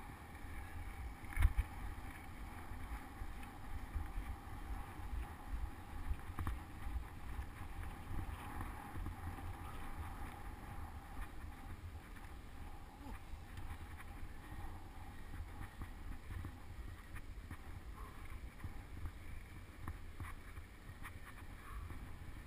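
Wind buffeting a bike-mounted action camera's microphone while riding a road bicycle, a steady low rumble. One sharp knock comes about a second and a half in.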